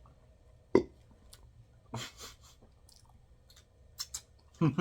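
Close-miked mouth sounds of someone chewing a bite of cheeseburger: a few short, separate smacks and clicks, loudest about a second in and near the end.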